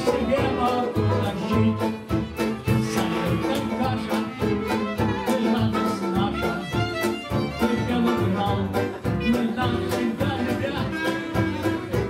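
Live acoustic band playing an instrumental passage: fiddle and clarinet carry the tune over plucked double bass and piano, with a steady beat.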